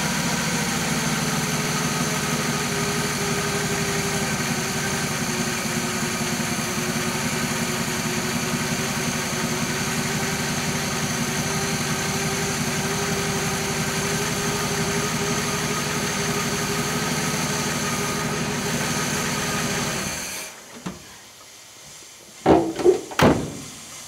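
1966 Chevy Biscayne's 396 big-block V8 idling steadily while hot, its idle dropping slightly in the first second as the idle mixture and speed are turned down. About 20 seconds in the engine shuts off, and two sharp knocks follow.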